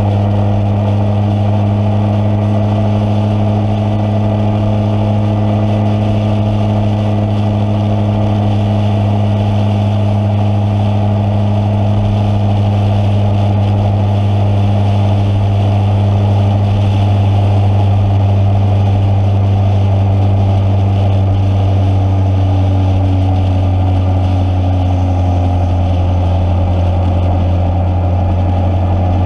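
Motorcycle engine running at a steady cruising speed, a constant drone with only a slight change in pitch in the second half.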